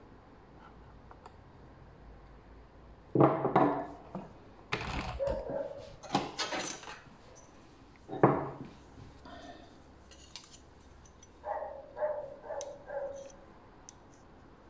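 Knocks and metallic clatter from a titanium hammer and a steel ruler being handled on a wooden table. Several sharp knocks come between about three and nine seconds in, then a quick run of four lighter taps near the end.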